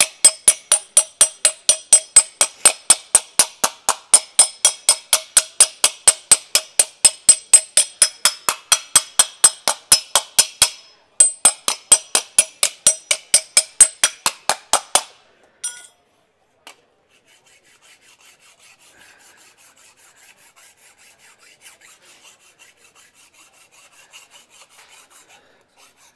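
Hand hammer striking an aluminium panel over a steel post stake, about four ringing blows a second with a brief break near the middle, working out low spots in the metal. The hammering stops about fifteen seconds in, and a file then rasps faintly across the aluminium, showing up the remaining highs and lows.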